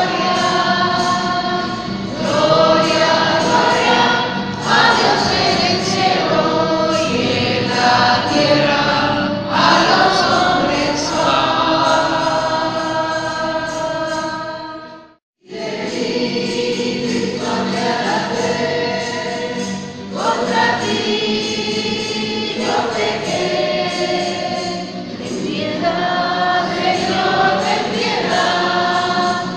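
Choir singing a religious hymn. About halfway through, the sound cuts out suddenly for a moment and the singing then resumes.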